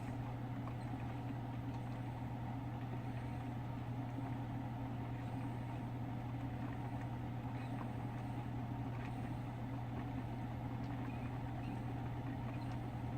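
Single-serve coffee maker running while it heats the water for a brew, a steady low hum with a faint hiss over it, before any coffee comes out.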